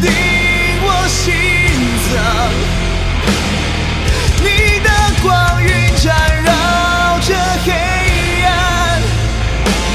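Rock song with a singer's voice over a steady bass line.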